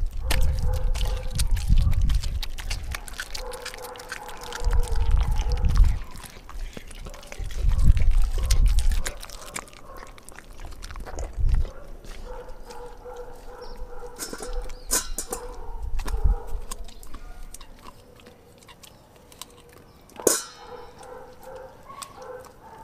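Dog chewing raw food close to the microphone: wet smacking and many clicks of teeth, with heavy low thumps several times in the first half. A single sharp ringing clink comes near the end.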